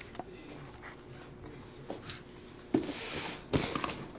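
Cardboard shipping case being handled on a table: a knock about two-thirds of the way in, a second of cardboard scraping and rustling, then another knock as the case is tipped over.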